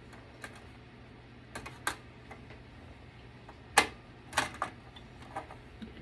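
Irregular sharp clicks and clacks of hard metal and plastic computer parts being handled as the CPU fan and heatsink are taken off, about seven in all, the loudest a little before the middle.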